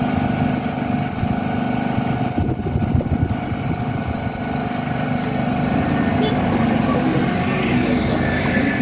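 An engine running steadily at idle, a continuous low drone. A light click comes about six seconds in as the fuse is pushed back into the fuse box.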